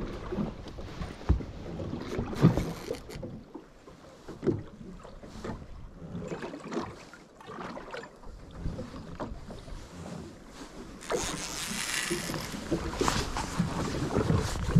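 Water slapping against the hull of a small boat, with irregular knocks and wind on the microphone; the wind hiss grows louder about eleven seconds in.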